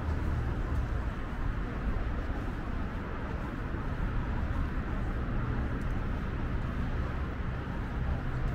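Steady city street ambience: a low, even rumble of traffic with no distinct events.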